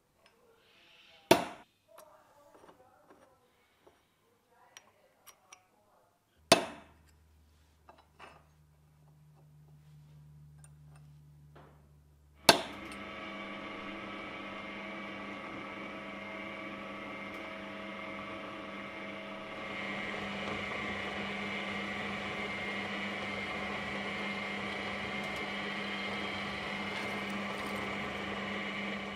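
Two sharp hammer taps on a small punch held against a machined aluminium part, with light clicks between them. Then, after a loud click, a drill press starts and runs with a steady whine, getting louder about two-thirds of the way through as a twist drill bores into an aluminium disc.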